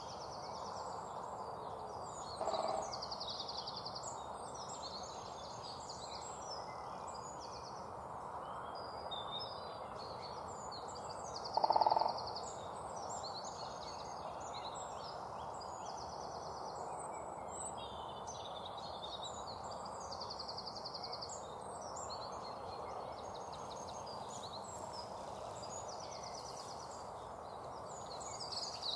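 Songbirds singing and chirping continuously over a steady outdoor background hiss, with two short louder calls, one about two and a half seconds in and a louder one about twelve seconds in.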